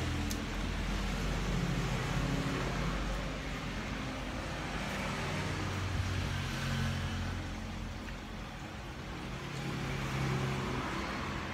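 Road traffic rumbling steadily, with vehicle engines swelling and fading as they pass.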